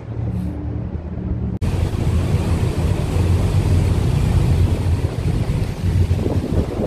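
Steady low drone of a harbour ferry's engine. About a second and a half in, the sound cuts abruptly to a louder, rougher rush of wind buffeting the microphone over the ferry's engine rumble and the water.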